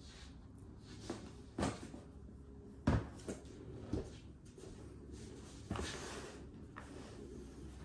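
Long cardboard soundbar box being handled and set down on a wooden floor: a few dull knocks, the loudest about three seconds in. Then a short scrape as it is pushed along the floor.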